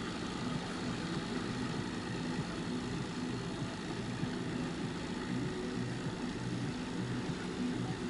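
Boat outboard motor running steadily at an even low speed.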